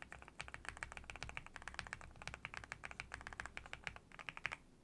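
Fast typing on a gasket-mounted AVAX GM03 Pro mechanical keyboard fitted with Gateron Milky Yellow Pro linear switches: a rapid run of keystrokes, a bit livelier than North Pole switches but soft and muted, with a brief pause near the end.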